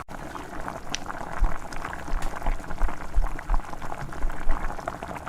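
Egg rolls deep-frying in hot oil: a steady sizzle with many small crackles and pops.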